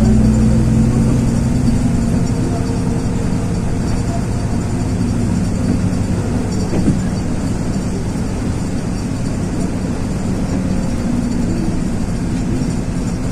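Inside the cabin of a LiAZ 6213 articulated city bus under way: the diesel engine runs steadily under road and tyre noise. The engine is strongest in the first couple of seconds, then eases. There is a single brief click about seven seconds in.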